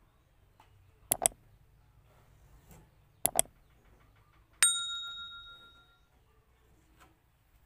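Two quick pairs of sharp clicks, then a single metallic strike that rings out with a clear, bell-like tone for about a second and a half.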